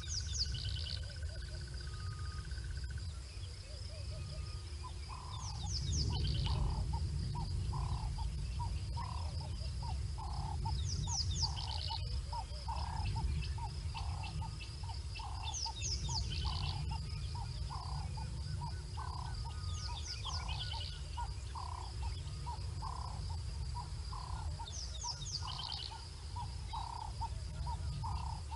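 Natural bush ambience of wild animal calls: a high call with falling notes repeating about every five seconds over a steady high insect drone, and from about five seconds in a low note repeated about twice a second, all over a low rumble.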